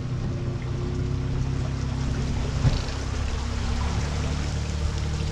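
Bass boat's outboard motor running steadily under way, with a steady rush of water alongside. A single brief knock a little past halfway through.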